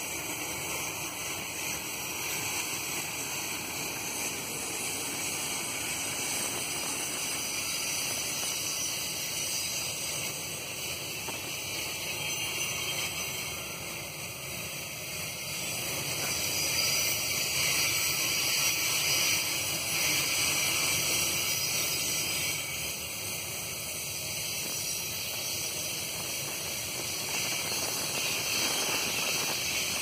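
Loaded iron-ore hopper wagons of a freight train rolling past, a steady hiss of steel wheels on rail. It swells a little about sixteen seconds in and again near the end.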